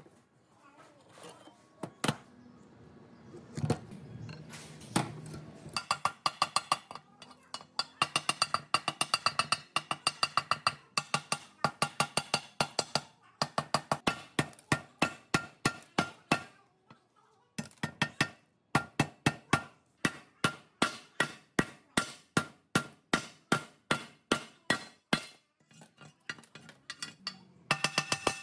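Hammer striking the rusted steel base of a stone grinder to knock off thick rust scale: a few scattered knocks at first, then quick ringing metallic blows, about three a second, broken by short pauses.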